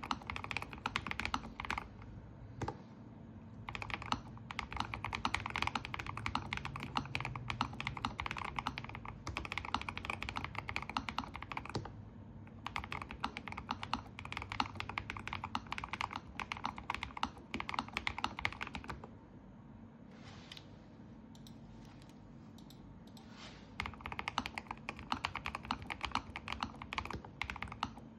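Typing on a Lofree Flow 2 low-profile mechanical keyboard: a fast, dense stream of key clacks. About two-thirds of the way through there is a lull of several seconds with only a few scattered keystrokes, and then fast typing resumes.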